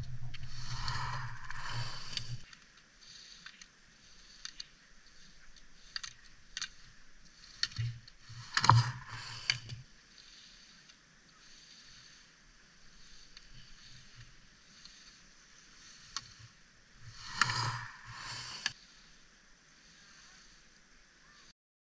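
Ski edges scraping and hissing on firm snow as a slalom racer carves past close by. Then fainter, with two more loud swishes, the first about eight seconds in and the second near the end.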